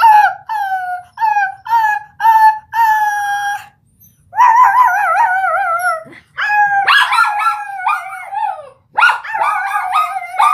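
A small curly-coated dog howling along with a girl who is howling to set it off. It starts as a run of short howls, then turns into longer wavering ones, with the two voices overlapping over the last few seconds.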